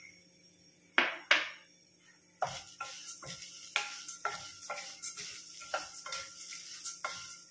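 Wooden spatula stirring dry-roasting dals and whole spices around a stainless steel kadai: two sharp knocks about a second in, then repeated scraping strokes of spatula and grains against the steel, about two a second, from a little past two seconds.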